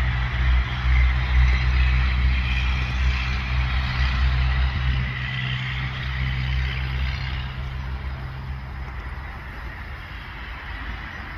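A motor vehicle's engine running with a steady low hum and a hiss of road noise above it, gradually fading over the second half.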